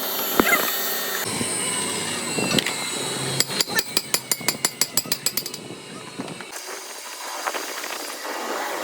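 Metalworking tool sounds in a workshop, changing abruptly several times, with a quick run of sharp metal strikes, about seven a second, for roughly two seconds in the middle.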